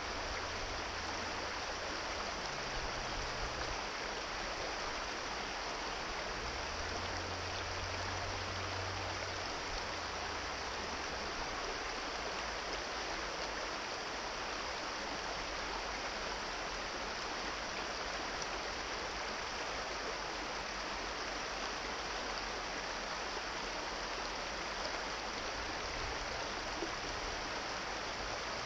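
Shallow, rocky brook rushing over stones: a steady rush of water that doesn't change.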